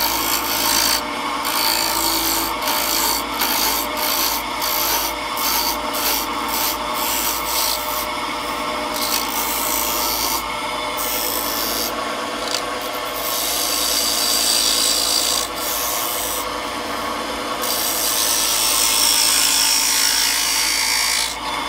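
A wood-turning lathe running with a plunge-cut tool cutting into a spinning wooden spinning-wheel bobbin, a scraping hiss over the lathe's steady hum. The cutting comes and goes in short repeated strokes at first, then runs steadier and louder toward the end.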